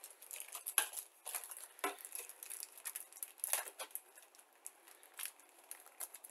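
Clear plastic parts bags crinkling and rustling as bagged model kit sprues are handled, with a string of irregular sharp crackles.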